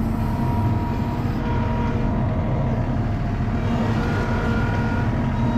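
Compact loader's diesel engine running steadily, heard from the operator's seat inside its open cage cab while the loader is driven and its arms are worked.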